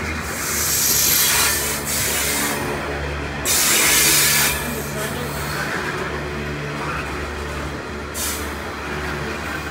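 Freight train of coal hopper wagons rolling past, a steady low rumble of wheels on the rails. Bursts of high hiss rise over it three times: twice in the first half and briefly near the end.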